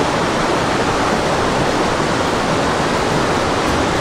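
Rocky mountain creek rushing close by over stone ledges in a small rapid, a steady loud rush of water.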